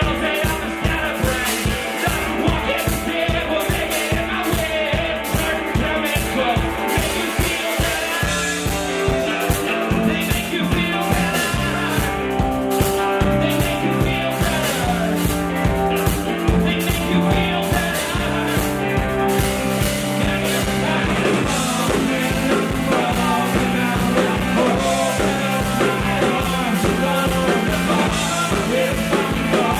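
Live rock band playing: electric guitar, bass, drums and a singer, driven by a steady fast drum beat. Low held bass notes come in about eight seconds in.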